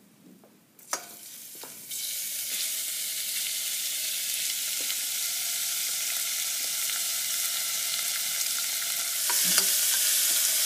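Diced lamb dropped into hot oil in a stainless steel pot, frying with a loud steady sizzle that starts suddenly about two seconds in after a knock or two. Near the end the sizzle grows louder, with a few knocks of a wooden spoon stirring the meat.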